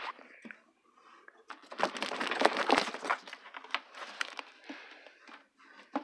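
Rustling and crackling of fabric rubbing against a handheld camera's microphone as it is moved, loudest about two to three seconds in, with scattered clicks after.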